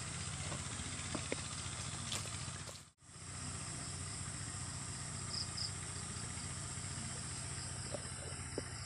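Steady outdoor ambience: a constant high buzz of insects with a low rumble underneath and a few light ticks of footsteps on leaf litter and twigs. The sound drops out abruptly for a moment about three seconds in.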